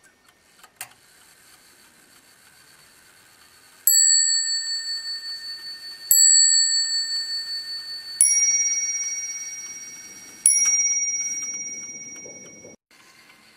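Roman-striking table clock (French movement) sounding its hour on two bells: a small click under a second in, then two strokes on a lower-pitched bell followed by two strokes on a higher-pitched bell, about two seconds apart, each left ringing. In Roman striking one bell stands for V (two blows for X) and the other for I, so the numeral is told by which bell sounds.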